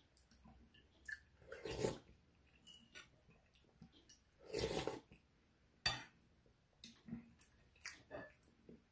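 Close-up eating sounds from a bowl of ramyeon noodle soup: two short slurps about two and five seconds in, a sharp clink of the spoon against the glass bowl just after the second, then small clicks and chewing.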